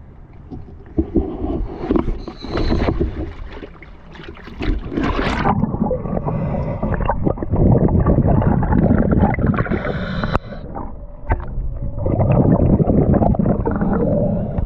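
Water sloshing and bubbling around a camera as it is taken underwater beside a boat's hull, coming in uneven loud stretches of a few seconds each.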